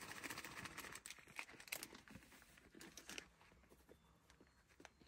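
Faint crinkling and rustling of a plastic bag as pancake batter is poured into it, with scattered small clicks.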